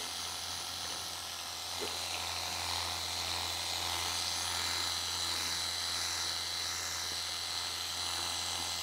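Worx Hydroshot Nitro 56-bar cordless pressure washer running continuously. Its motor-driven pump hums steadily under the hiss of the water jet spraying onto the car's bodywork.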